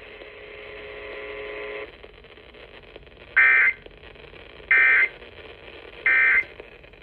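Emergency Alert System end-of-message data bursts from a weather radio receiver: three short bursts of warbling data tones, about 1.3 seconds apart, marking the end of the severe thunderstorm warning. Before them, a faint steady tone stops about two seconds in.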